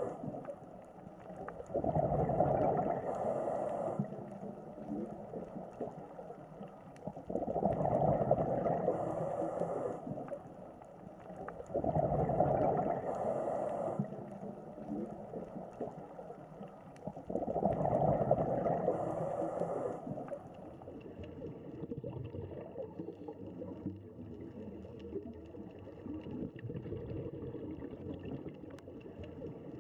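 Scuba diver breathing underwater through a regulator: four breath cycles about five seconds apart, each a loud burst of bubbling with a brief hiss. The breathing stops about two-thirds of the way in, leaving a quieter, steady underwater wash.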